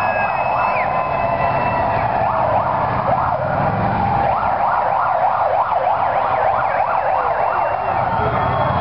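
A large crowd cheering and shouting, with a siren sounding through it as a run of quick rising yelps from about a second in until near the end.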